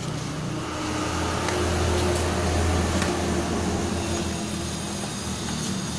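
A low, steady engine-like rumble that swells about a second and a half in and eases off after about three seconds, with a few faint knocks of blows landing on a rubber-tire training dummy.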